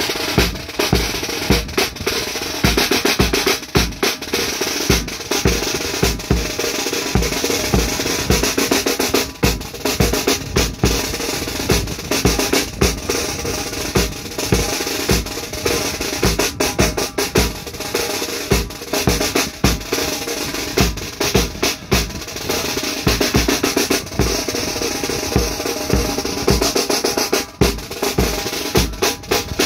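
A marching band's drum section playing a drum solo: snare drums rolling and rattling fast over regular bass drum beats.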